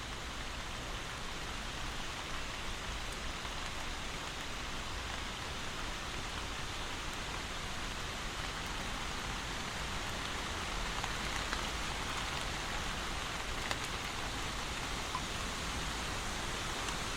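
Steady rainfall, an even hiss of drops with a few faint individual taps.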